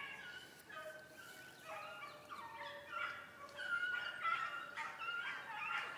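A pack of rabbit hounds baying together while running a rabbit, many overlapping drawn-out calls that grow louder in the second half.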